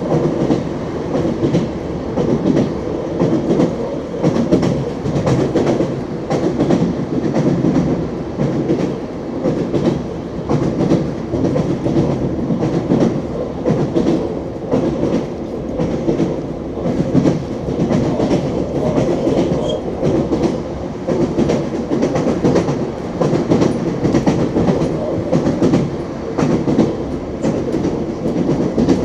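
Wheels of an ES2G Lastochka electric train clattering over rail joints as it runs, over a steady rumble of the moving train.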